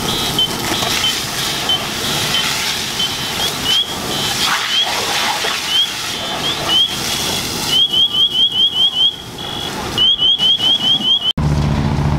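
Car alarm sounding through its cycle of high electronic tones: steady notes and single rising chirps, then fast runs of rising chirps several times a second, over a steady hiss. It cuts off near the end, giving way to a low engine rumble.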